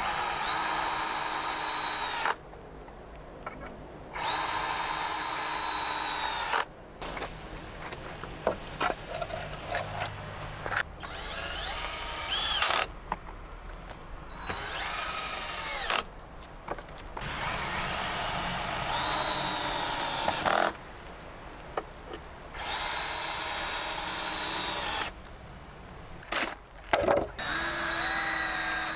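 Cordless drill-driver driving screws into pine two-by-four framing, in repeated runs of two to three seconds with short pauses between. Several runs start with a rising whine as the motor speeds up.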